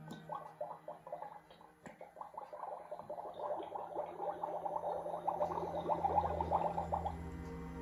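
Magic Mixies toy cauldron making a rapid bubbling, gurgling sound as it starts to mist. The bubbling grows louder and stops about seven seconds in.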